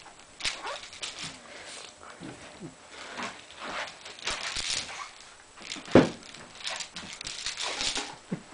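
A baby's short whimpering and grunting sounds while the baby shakes plastic toy chain links, which rattle and clack, with one sharp knock about six seconds in.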